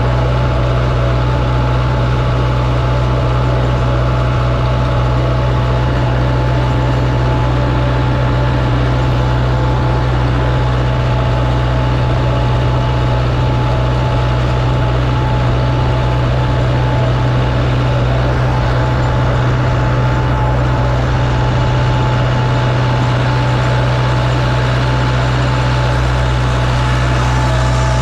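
International 474 tractor's engine running steadily while working a hay tedder in the field, an even, unbroken drone.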